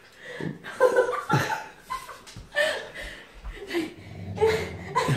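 A person laughing in short bursts, several times over.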